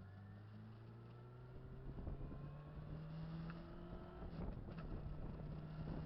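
Motorcycle engine running with its pitch slowly climbing as it gathers speed, under a haze of wind noise.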